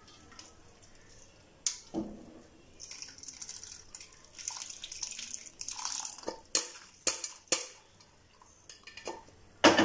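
Mutton stock pouring from a pressure cooker through a stainless-steel mesh strainer into a clay pot, with a splashing hiss in the middle stretch. Several sharp metal clinks of the cooker and strainer knocking together, the loudest near the end.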